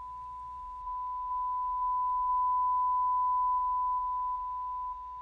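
A steady 1 kHz sine-wave tone from a small speaker driven by a Moku:Go waveform generator. The amplitude is turned up in a few steps about a second in, then back down in steps near the end, so the tone gets louder and then softer, with a faint click at each step.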